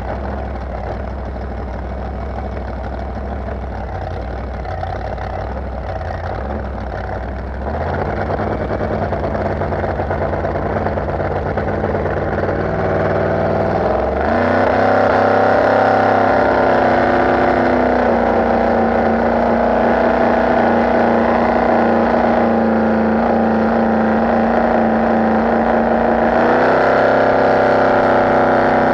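A boat's big exposed inboard engine, with a blower on top, running steadily, then throttled up about a quarter of the way in with its pitch climbing, stepping up again around halfway, and holding a steady high-speed note. Wind and water rush underneath.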